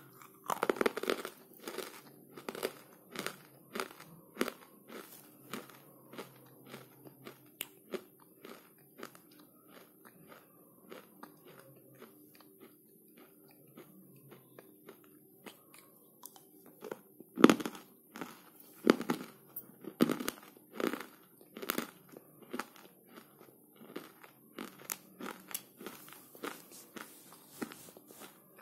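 Close-up biting and chewing of dry, brittle clay chunks: a long run of sharp, irregular crunches. The loudest bites come in a cluster a little past the middle.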